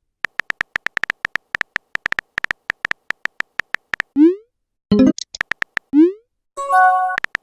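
Phone keyboard typing clicks, rapid and irregular for about four seconds, then short rising pops of chat messages appearing, a brief chirp, and a message-alert chime near the end before the typing clicks start again.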